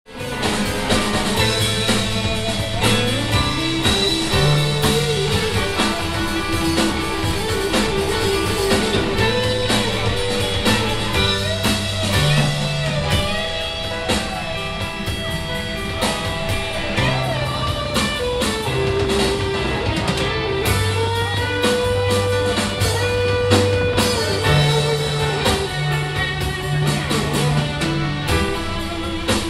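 Instrumental rock music: guitar over a bass line and drums with a steady beat.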